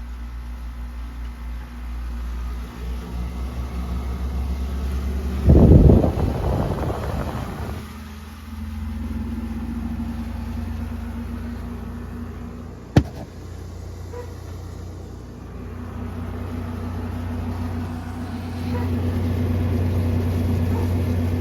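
2019 Frigidaire 5,000 BTU window air conditioner running with a steady low hum. A loud rush comes about five seconds in and a sharp click about 13 seconds in, and the hum grows louder near the end.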